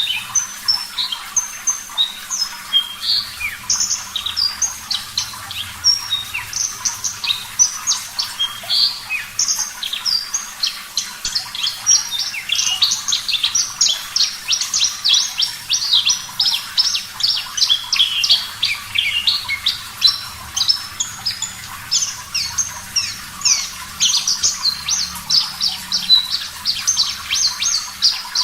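Javan bush lark singing a long, fast, unbroken stream of varied high chirps and trills, over a steady background hiss of running water.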